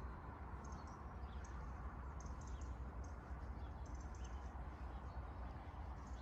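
Faint outdoor ambience: a steady low rumble under small birds chirping, short high chirps coming every second or so.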